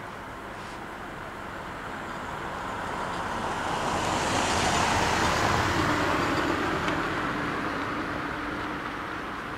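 A road vehicle passing, its tyre and engine noise swelling to a peak about five seconds in and then fading away.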